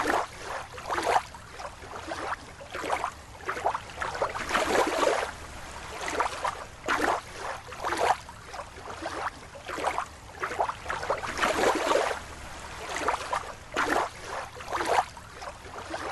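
Water sloshing and splashing in irregular bursts, a new splash every second or so.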